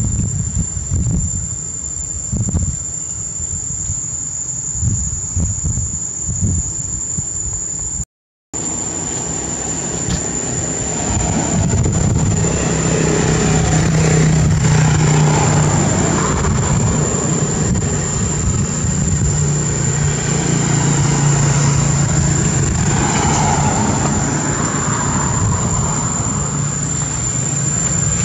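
Wind buffeting the microphone over a steady high insect drone. After a brief dropout, motor vehicles pass on a nearby road: a steady engine hum swells and stays loud, with a low drone that comes and goes twice.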